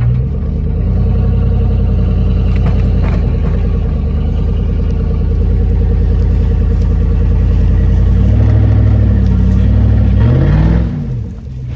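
Truck engine running hard and steady under load while towing. Its pitch shifts up and down about eight seconds in, then it falls away and the engine drops back near the end.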